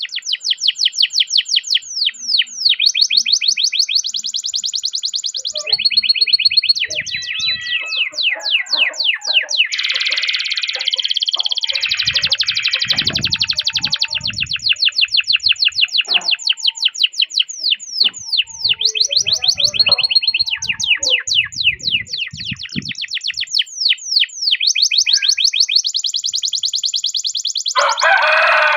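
Domestic canary singing long, fast rolls: rapid runs of high downward-sweeping notes, broken up by steady held trills and a dense buzzy passage.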